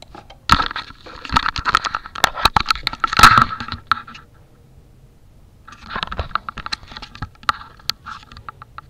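Handling noise on the camera's microphone: dense scraping, rubbing and knocking as the camera is picked up and swung around, in two bursts with a quieter gap of about a second and a half between them.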